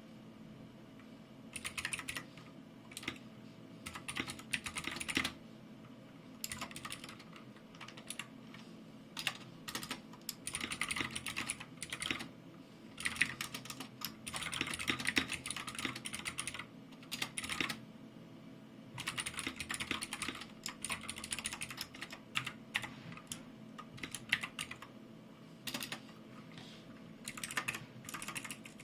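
Typing on a Keycool 84 2S mechanical keyboard with clicky Gateron Blue switches: fast runs of sharp key clicks in bursts a few seconds long, with short pauses between.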